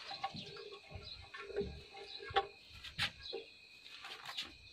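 Faint, scattered clicks and knocks of hands working at a small diesel hand tractor's engine, with the starter rope being wound back onto its pulley. The loudest knock comes about three seconds in. Birds chirp faintly in the background.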